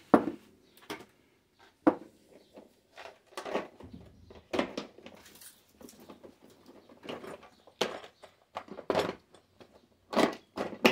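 Irregular knocks, clicks and clatters of hand tools being put away into a toolbox.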